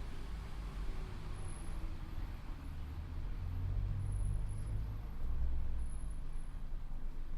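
Inside a Tokyo Metro 8000 series electric train with Mitsubishi IGBT inverter drive: a steady low running rumble, with a faint motor tone falling in pitch over the first couple of seconds as the train slows. This car is known for an abnormal, muddy-sounding drive.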